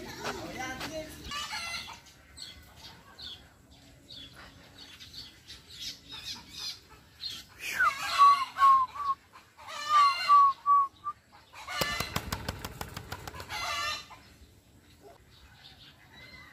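A parrot calling loudly in two bouts of repeated harsh notes, about eight and ten seconds in. This is followed by about two seconds of rapid rustling strokes.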